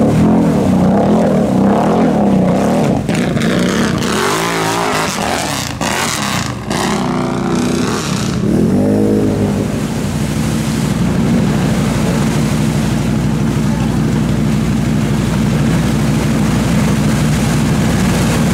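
ATV engine revving up and down a few times, then running at a steady speed.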